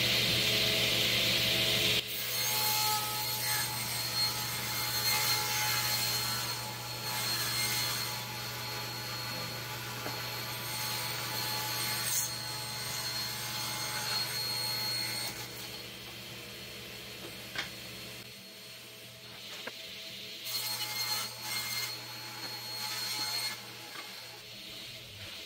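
A table saw ripping 3/4-inch plywood, with the loud cut ending about two seconds in. A steadier motor hum carries on and stops about three-quarters of the way through, followed by plywood boards being shifted and knocked on the bench.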